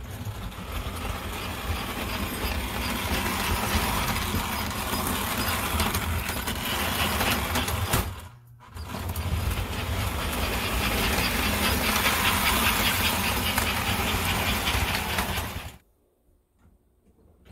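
American Flyer S gauge model passenger train running on its metal track: a steady motor rumble with fine, rapid wheel clatter. It drops out briefly about eight seconds in and stops abruptly near the end.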